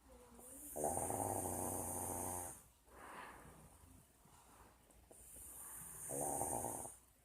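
A grandmother snoring in her sleep: two loud, rough snores about four seconds apart, the first nearly two seconds long and the second about one second, with quieter breathing between them.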